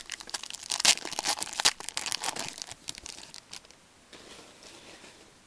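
A Panini Certified hockey card pack wrapper being torn open and crinkled by gloved hands, a dense crackling for about three and a half seconds, then a fainter rustling.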